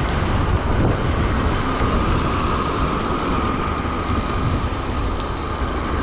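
Steady rush of wind and road noise while riding a motorcycle, with a faint steady whine running through it.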